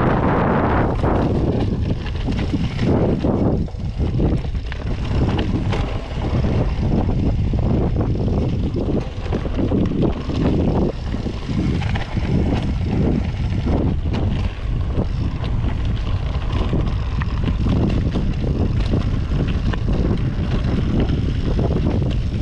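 Wind buffeting the camera microphone, over the rumble of a Yeti SB5 mountain bike's tyres on a dirt trail with frequent small rattles and knocks from the bike.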